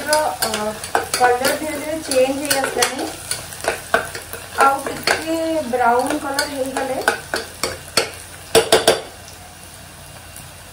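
A spatula stirring food that is frying in a metal pot, scraping and clicking against the pot with a sizzle underneath. A voice is heard at times, in roughly the first three seconds and again in the middle.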